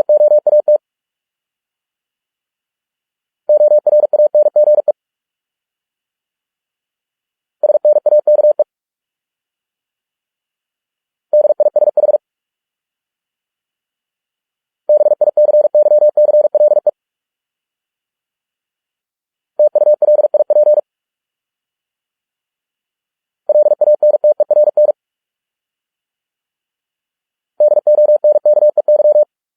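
Morse code sent as a steady pure beep at 45 words per minute: eight short runs of rapid dits and dahs, each an English word lasting one to two seconds, with two to three seconds of silence between words.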